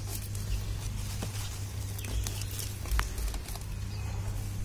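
Coriander plants rustling and stems snapping as a hand picks them, with a few faint clicks over a steady low hum.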